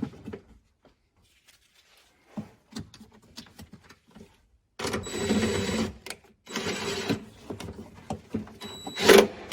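Cordless 1/4-inch impact driver running a bolt in, in short bursts: about a second of run near the middle, a second shorter run, and a brief loud burst near the end. Light clicks of parts being handled come before it.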